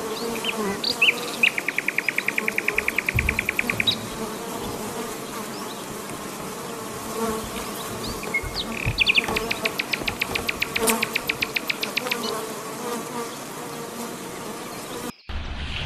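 Bees buzzing steadily. Over the buzz come high chirps and two rapid trills of about ten pulses a second, one about a second and a half in and one around nine seconds in. The sound cuts off abruptly shortly before the end.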